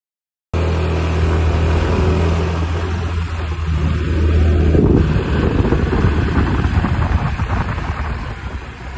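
Yamaha Cuxi 100 fuel-injected scooter's single-cylinder engine running, starting suddenly about half a second in. It holds a steady note at first, then turns rougher and louder around the middle as the scooter moves off. It runs free of abnormal noise after the repair: "completely no sound, very quiet."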